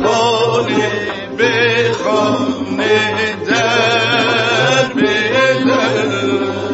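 Music: a voice singing long notes with a wide, wavering vibrato, in phrases of a second or two separated by short breaks.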